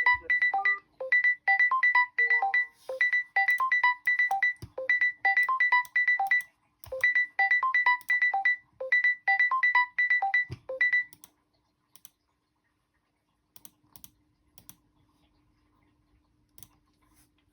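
Mobile phone's electronic ringtone: quick high beeps in short bursts over a few short lower melody notes, repeating in a steady cycle and stopping about 11 seconds in. A few faint clicks follow.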